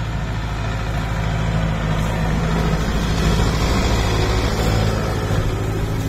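Kubota MU5002 4WD tractor's four-cylinder diesel engine running steadily under load as it pulls a cultivator through the soil. It grows louder as the tractor comes close, loudest around the middle.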